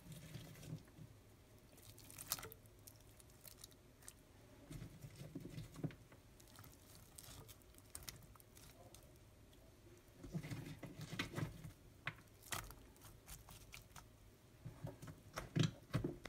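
Julienned raw radish sticks being dropped and arranged by hand in a rice cooker's inner pot: quiet, scattered clicks, taps and rustles, in a few clusters.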